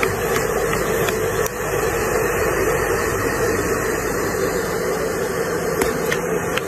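Small handheld electric appliance running steadily close to a cat's fur: a constant motor hum with a rush of air.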